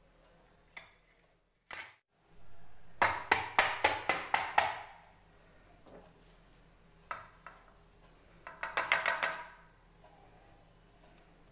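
A stainless steel mould clattering against a steel plate as it is knocked to release the set Mysore pak: a quick run of sharp metal-on-metal clacks about three seconds in, a couple of single knocks after seven seconds, and another short run near nine seconds.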